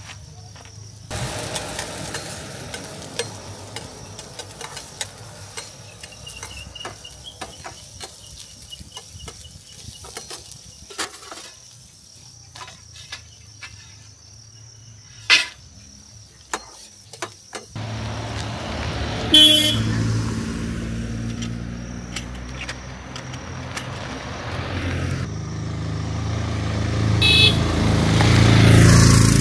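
Scattered clicks and knocks for the first half, then road traffic passing close by: vehicle engines running, two short horn blasts, and one vehicle growing louder as it comes past near the end.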